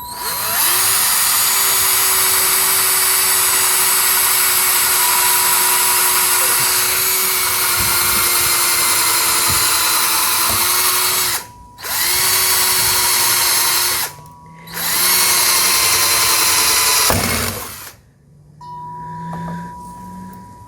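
Power drill running at a steady speed while boring into the garage door, in three runs: one long run of about eleven seconds, then two short runs of two to three seconds each with brief stops between. A faint low rising hum follows near the end.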